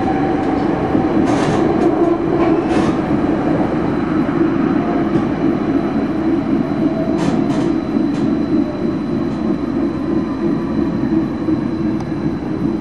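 Stadler Variobahn light-rail tram running at speed, heard from inside the car: a steady rumble of wheels on rail and running gear. A few short sharp clicks come through it, about a second and a half in, around three seconds, and twice more around seven to eight seconds.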